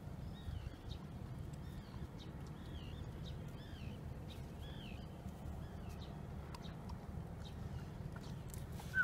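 A bird repeating a short, wavy chirp every second or so, over a steady low rumble.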